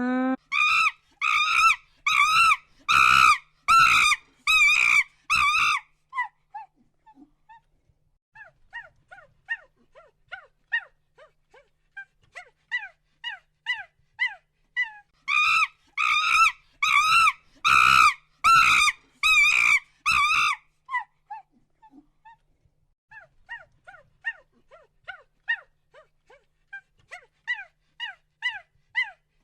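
An animal calling in quick series of short, high-pitched, wavering cries, about two a second, in two loud bouts, with softer, shorter falling calls between them.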